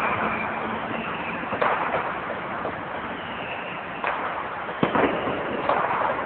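Firecrackers going off: about half a dozen sharp bangs at irregular intervals over a steady background din.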